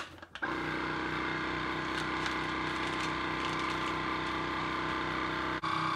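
Vacuum sealer's pump running steadily as it draws the air out of a bag, after a click as the lid is pressed down. Near the end the sound dips briefly, then carries on with a brighter, higher tone.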